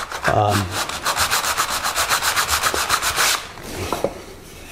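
Oak being hand-sanded with sandpaper on a cork block, in quick, short, even back-and-forth strokes that stop a little over three seconds in.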